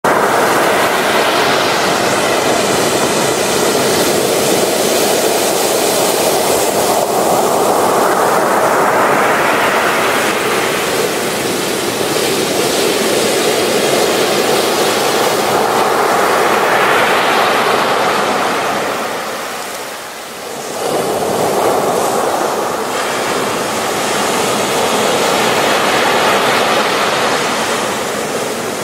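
Ocean surf breaking on the shore: a steady rush of water and foam that swells and fades as each wave comes in, with a brief lull about two-thirds of the way through.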